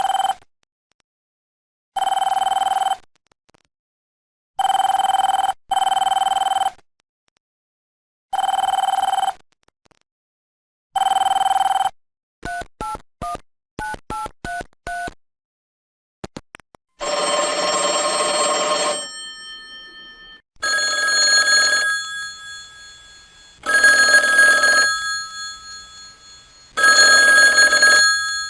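A run of telephone sound effects: a phone ringing in short bursts of about a second, then a quick string of about ten keypad beeps as a number is dialled, then a different, fuller telephone ring in longer bursts of about two seconds, each fading out.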